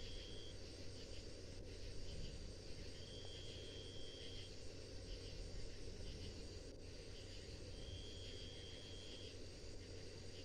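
Night insects calling: a high, even buzz lasting about a second and a half that repeats every four to five seconds, with softer short chirps in between, over a steady low background noise.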